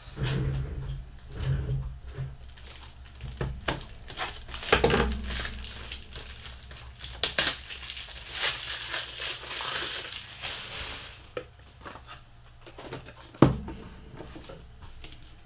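Plastic trading-card pack wrapper being crinkled and crumpled by hand: irregular crackles and clicks, densest around the middle, with one sharp knock near the end.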